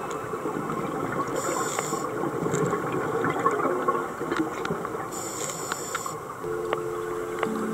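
Underwater sound from a scuba dive: a steady bubbling, gurgling wash with scattered sharp clicks, and two short bursts of high hiss about three and a half seconds apart, typical of a diver's regulator on inhalation. Music fades back in near the end.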